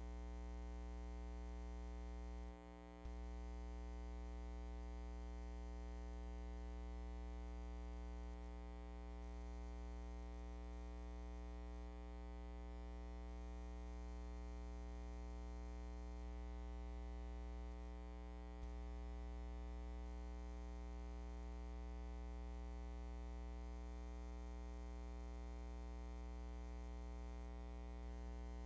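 Steady low electrical hum with a thin buzz above it, unchanging throughout and dipping briefly about three seconds in.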